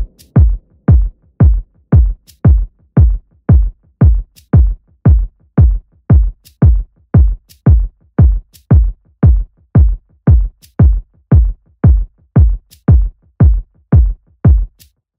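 Electronic dance music: a steady kick-drum beat, about two thumps a second, that stops suddenly near the end.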